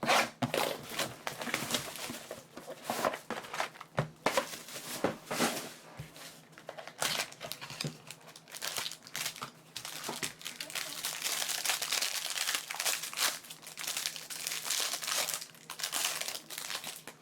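Foil wrappers of trading card packs being torn open and crinkled by hand: an irregular, continuous crackling with short sharp tears.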